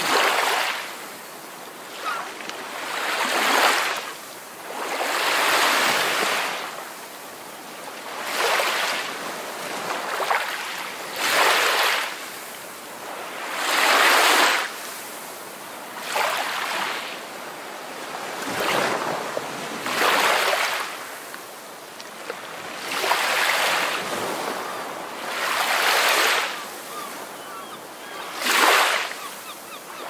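Ocean surf: waves break and wash in one after another, each surge swelling and falling away every two to three seconds.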